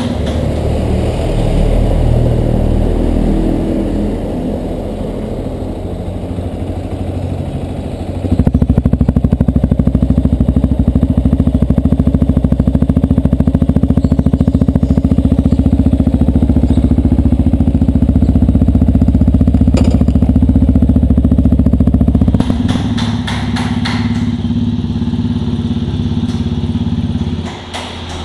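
Yamaha Ténéré 250's single-cylinder engine running through its exhaust: idling unevenly at first, then held at a steady higher speed and louder for about fourteen seconds from about eight seconds in, then dropping back to idle.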